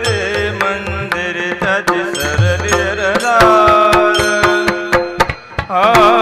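Marathi Varkari devotional song: a sung melody over a steady drone, with rhythmic hand-drum strokes and small cymbal clashes keeping time. There is a brief drop in the music a little after five seconds.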